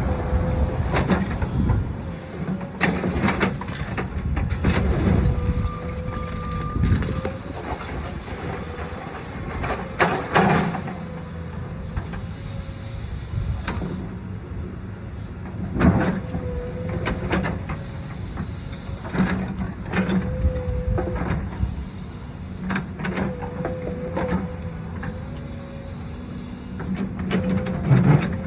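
Backhoe engine running under load with a whine that comes and goes as the hydraulics work, over repeated knocks and crashes as the cinder block wall is broken and blocks fall.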